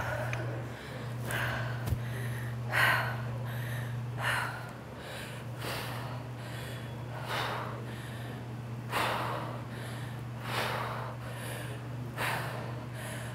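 A woman breathing hard, with a short, sharp, noisy exhale about every second and a half in time with dumbbell bent-over rows. A steady low hum runs underneath.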